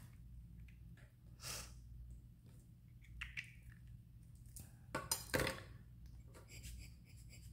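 Short puffs of air from a rubber bulb air blower squeezed over wet alcohol ink on a polymer clay slab: one puff about a second and a half in, then two in quick succession about five seconds in. A faint steady hum lies underneath.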